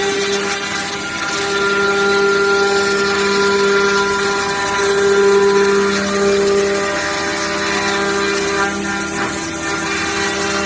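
Twin-head five-axis CNC wood router running, its spindles giving a steady whine with a low hum that swells a little about halfway through.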